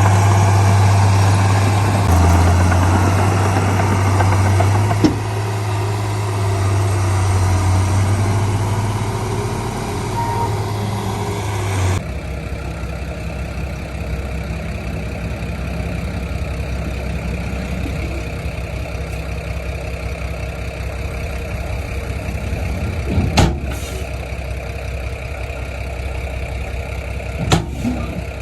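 Diesel engine of heavy earthmoving machinery running steadily with a deep hum. Partway through, the sound changes abruptly to a lower, rougher engine note, and there are two sharp metallic knocks near the end.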